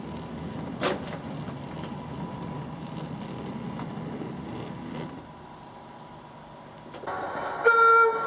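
O gauge model Class 03 diesel shunter running with coal hopper wagons: a steady low rumble, with a sharp click about a second in. Near the end a model Class 08 shunter's horn sounds a loud blast with a clear pitched tone.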